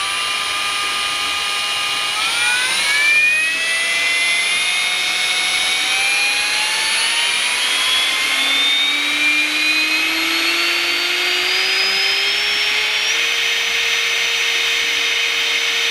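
Ryobi R18PDBL-0 brushless 18V hammer drill running free with no load, its motor and gearbox whining. The pitch holds for about two seconds, then climbs slowly and smoothly for about ten seconds as the trigger is squeezed further, and levels off at full speed near the end. It speeds up all the way without cutting out.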